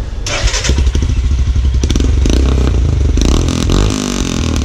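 Royal Enfield Himalayan's single-cylinder engine running through a freshly fitted PoweRage aftermarket exhaust, with a short rise and fall in revs about three seconds in.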